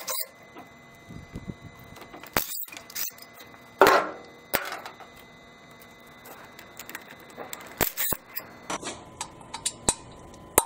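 Metal hand tools clinking and knocking against a cast-iron Chevy 283 small-block, with a few heavier clanks. Near the end comes a run of quick, sharp metal taps from a hammer worked at a stuck exhaust-manifold bolt that has rounded off.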